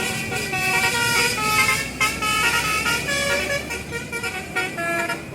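Bus telolet basuri horn playing a quick tune of short notes that step up and down in pitch.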